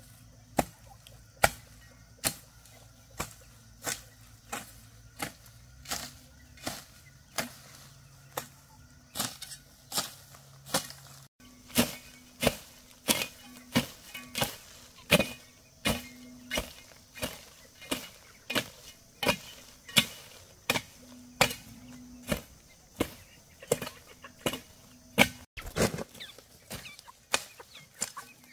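A hand blade or hoe chopping with steady, sharp strikes, about one and a half a second.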